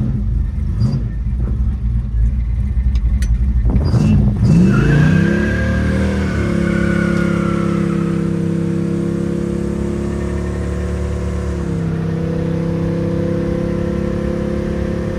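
Big-block V8 of a 1967 Chevrolet Chevelle 427: a low rumble at first, then about four seconds in the engine note rises sharply and settles into a steady higher-rev drone. The note drops a step about three-quarters of the way through.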